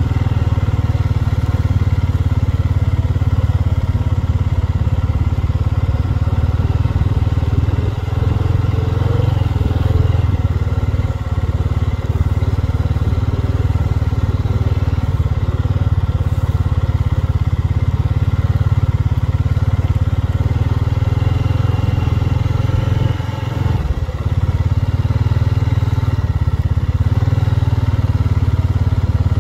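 Honda Rubicon 500 ATV's single-cylinder engine running steadily as it drives along, easing off briefly about two-thirds of the way through before pulling again.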